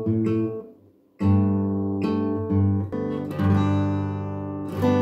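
Steel-string acoustic guitar strummed in chords. It stops briefly about a second in, then a loud chord rings out and the chords change several times.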